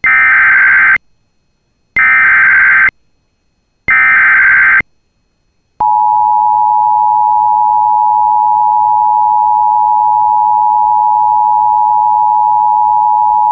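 Emergency Alert System alert opening: three roughly one-second bursts of SAME header data, a harsh warbling digital screech, then about a second's pause and the long, steady EAS attention tone starting about six seconds in. Together they signal that a weather warning broadcast is about to follow.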